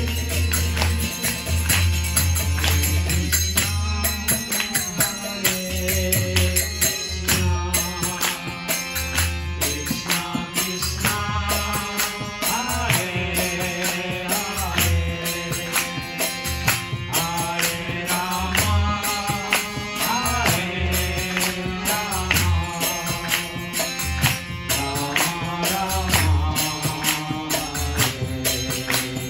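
Devotional chanting with harmonium: sustained reed-organ chords under sung melody lines, with jingling percussion strikes and repeated low thumps keeping the rhythm.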